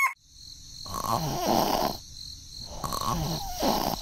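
Snoring: two long snores, each lasting about a second and a half.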